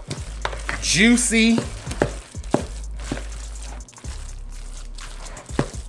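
A utensil stirring thick, mayonnaise-dressed chicken salad in a mixing bowl, a wet mixing sound with several sharp clicks and scrapes of the utensil against the bowl.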